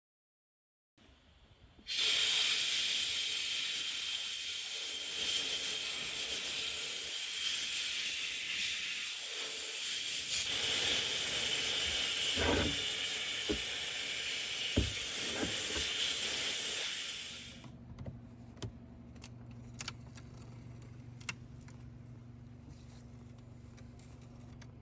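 Media blaster hissing steadily for about fifteen seconds, with a few knocks partway through, then shutting off. A low steady hum with scattered clicks follows.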